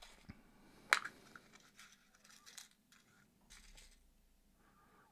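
Small clear plastic box of NFC antenna coils being handled on a desk: one sharp plastic click about a second in, then a few fainter clicks and scrapes.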